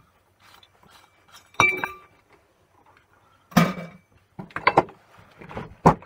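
Small metal parts of a dismantled lamp fitting clinking and knocking against a steel block and workbench: several separate sharp clinks, a couple with a short metallic ring, coming closer together near the end.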